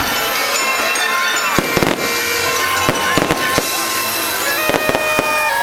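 Fireworks bursting in several quick clusters of bangs, over loud show music with held tones.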